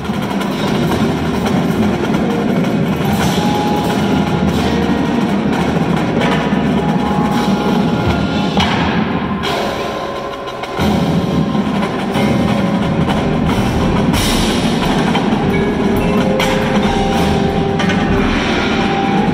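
Indoor percussion ensemble playing: marching drums together with mallet keyboards and a drum kit in the front ensemble. The music eases off briefly about ten seconds in, then comes back in full just before eleven seconds.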